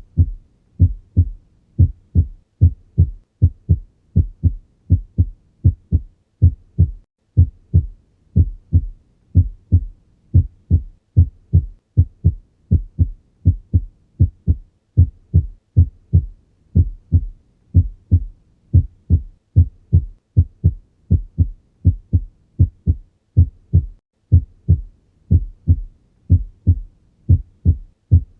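Human heart sounds heard through a stethoscope during cardiac auscultation: a steady, regular rhythm of dull low thuds, the lub-dub of the heartbeat.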